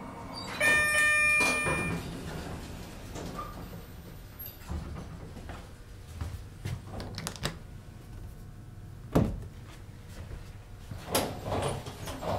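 Westinghouse hydraulic elevator's arrival chime rings about half a second in, lasting over a second, and then the car doors slide. Sharp knocks follow from the doors and car, the loudest near the middle and a cluster near the end.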